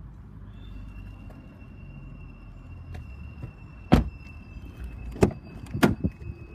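Volvo V70 car doors being handled: a loud door shut about four seconds in, then sharper clicks of the handle and latch as a door is opened again. A faint steady high tone runs beneath it.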